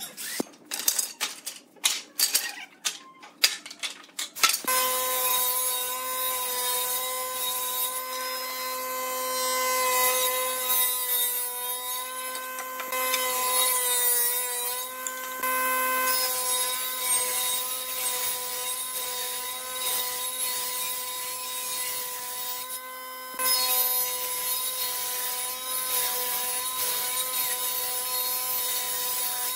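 Pipe clamps being tightened on a glued-up wood panel, a quick run of clicks and knocks. Then a table saw runs steadily, ripping a board fed with a push stick, with a short break a little over twenty seconds in before the next cut.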